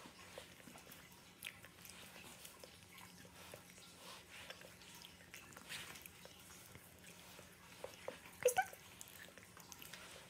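A Shih Tzu puppy begging for banana: faint scattered clicks and chewing sounds, with two short whines about eight and a half seconds in, the loudest sounds.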